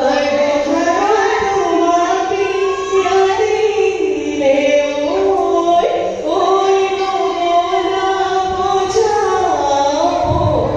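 Women's voices singing a Jeng Bihu song into microphones, one melody of long held notes that slide from pitch to pitch.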